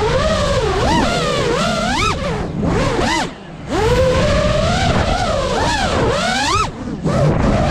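FPV quadcopter's brushless motors whining, the pitch swooping up and down sharply as the throttle changes. The sound drops away briefly about three seconds in and again near the end, then surges back.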